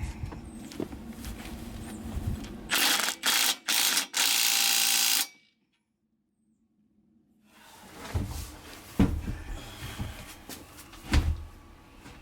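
Power drill boring into metal with cutting oil on the bit: three short bursts, then a longer steady run of about a second. After a short gap, a few dull knocks.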